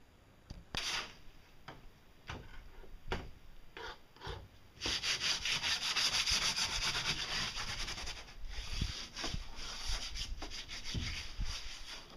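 Hand sanding of a boat hull's surface to prepare it for paint. There are scattered scrapes and knocks at first. About five seconds in, quick back-and-forth rasping strokes begin, then ease off into slower, sparser strokes near the end.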